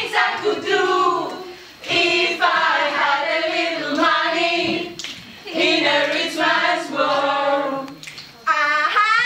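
A group of voices singing together in phrases of a few seconds, with short breaks between them.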